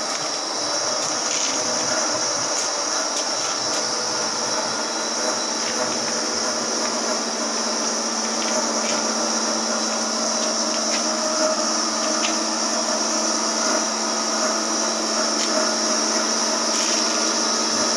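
Steady hum with a constant high-pitched whine from a powered-up CNC lathe standing idle, its chuck at rest and not cutting; a few faint ticks.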